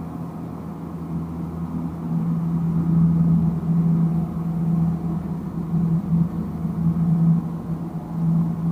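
Low steady hum of a stationary old-style tram car's onboard electrical equipment, heard from inside the car, growing louder about two seconds in and wavering in level.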